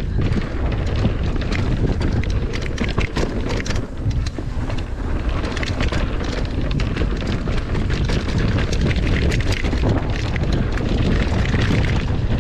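Mountain bike being ridden over rough trail, with heavy wind buffeting the camera microphone and frequent sharp clicks and clatter from the bike over the ground.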